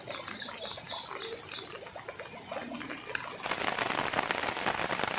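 A bird singing a quick run of about five high chirps, then one more short chirp about three seconds in. Just after that, a dense, even hiss of falling rain starts and carries on.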